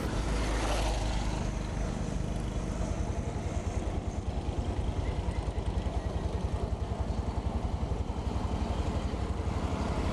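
Motorcycle engine running steadily while being ridden along a road, with a fast, even pulsing from its firing.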